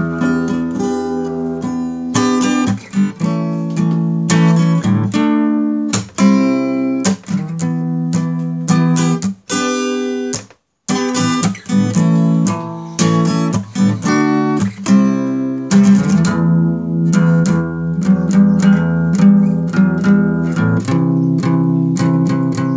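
Guitar music: plucked notes and chords played continuously, with a brief break about ten seconds in.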